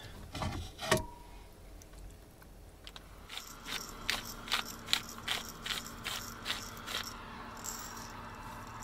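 Hand-held black pepper grinder being twisted, cracking peppercorns in a quick run of gritty clicks, about four a second, that starts a few seconds in and lasts about four seconds. A single knock comes about a second in.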